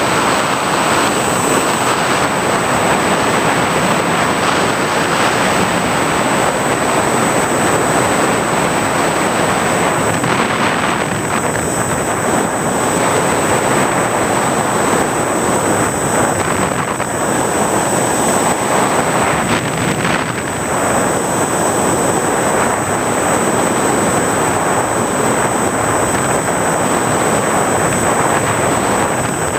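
Steady rush of wind and motor-and-propeller noise picked up by the onboard camera microphone of a high-flying FPV model aircraft, with a constant high whine over it.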